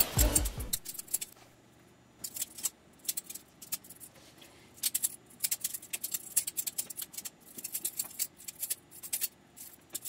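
Balisong (butterfly knife) being flipped by hand: quick metallic clicks and clacks as the handles swing around the blade and strike each other. They come in irregular clusters with short pauses between them. A song fades out in the first second.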